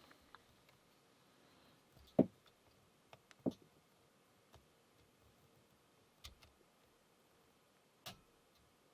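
Lock pick and tension tool working the pin stack of a Burg Wächter Karat padlock, with its spool pins: a few sharp separate clicks, the loudest about two seconds in and another about a second later, fainter ones near the end as pins set.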